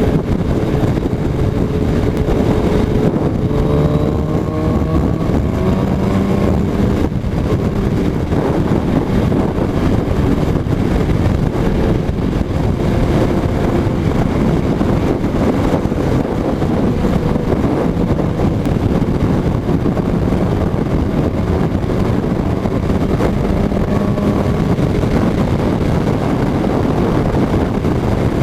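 Suzuki Hayabusa inline-four engine running under way, its pitch climbing and easing off several times as the bike accelerates. Heavy wind rush on the microphone runs under it.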